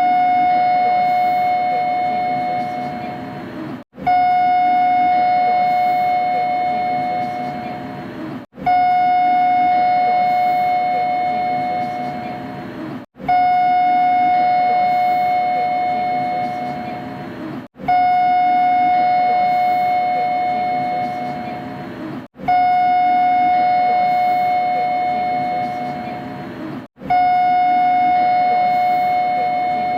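Kita-Osaka Kyuko 9000 series train door chime, a three-tone electronic chime, played over and over, once about every four and a half seconds. Each ringing fades out and cuts off short before the next begins, with a faint hum underneath.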